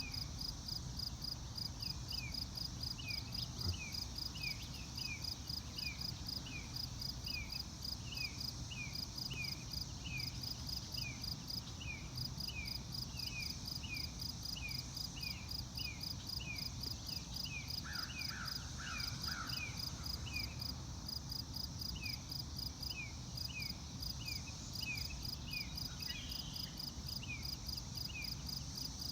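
Outdoor chorus of insects and frogs: a steady series of short falling chirps about twice a second, with pulsing insect trills higher up and a low steady rumble underneath. A few lower calls come in briefly about two-thirds of the way through.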